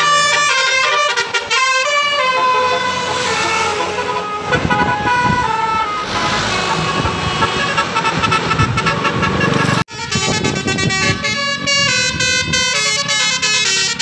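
Bus 'telolet' horn, a Basuri multi-tone air horn, playing a quick melody of stepping notes, with a passing bus's engine and tyre noise under it in the middle. About ten seconds in the sound cuts out for a moment, then the horn melody starts again.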